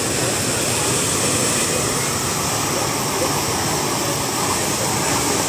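A tall jet of water gushing out of the ground and falling back as spray and splash, making a steady rushing noise that does not let up.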